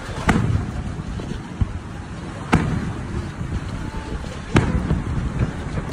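Aerial firework shells bursting: three sharp bangs about two seconds apart, with a weaker pop between the first two, over a steady low rumble.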